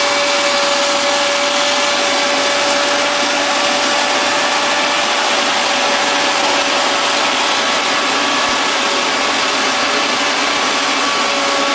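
A small electric machine running steadily: one constant whine over an even rushing noise, while grain runs into a metal tray.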